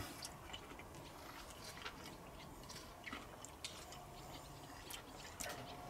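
Faint chewing: small wet mouth clicks as a man chews a mouthful of food taken from a fork.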